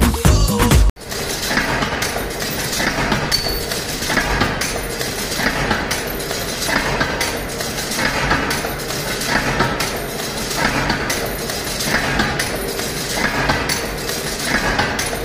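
Honeycomb coal briquette press running, with a rhythmic metallic stamping clatter about every 1.3 seconds over a steady rattle and knocking of machinery. Electronic music plays for the first second and cuts off suddenly.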